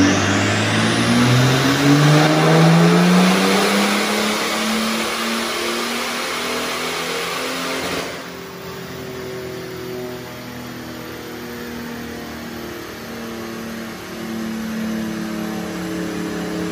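Stage 2 tuned BMW 535d E60's twin-turbo diesel straight-six accelerating hard, its note rising over the first few seconds with a rising turbo whistle at the start, then running on more steadily and dropping in loudness about halfway through.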